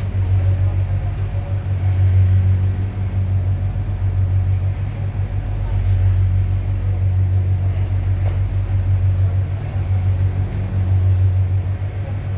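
Low, steady rumble heard inside a Mitsubishi Crystal Mover C810 automated people-mover car, swelling and easing slightly in level.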